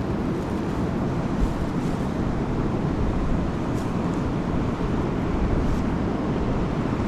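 Steady rushing noise of a fast mountain river, the Kali Gandaki, with a few faint ticks.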